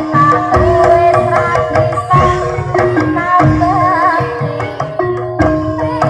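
Javanese gamelan music for a barongan dance: hand-drum strokes under steady held gong-chime tones, with a wavering, ornamented lead melody over them.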